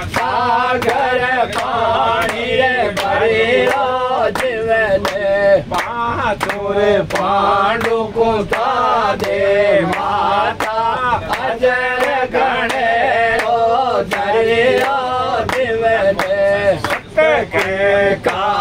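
A man sings a sakhi (a Rajasthani devotional verse) in a chanting style, with no instruments. Sharp handclaps keep time about twice a second.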